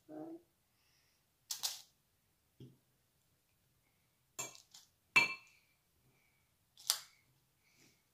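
A metal spoon clinking against a glass mixing bowl while scooping crumb mixture, about six sharp clinks at irregular intervals, the loudest about five seconds in with a brief ring.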